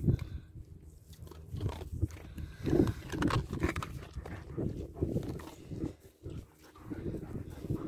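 German Shepherd dogs and a Husky sniffing and snuffling right at the microphone, in irregular bursts.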